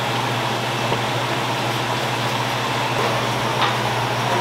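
Steady low mechanical hum over even background noise, with a single light click about three and a half seconds in.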